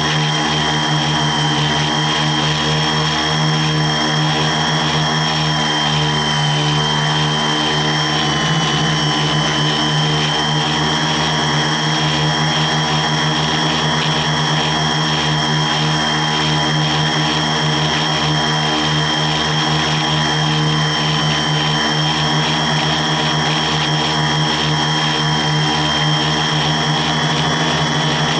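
Quadcopter's electric motors and propellers running steadily in flight, heard close up from on board: a low drone with steady high whining tones over it.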